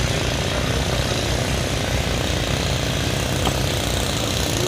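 Construction-site machinery running with a steady, loud drone. There is a brief click about three and a half seconds in.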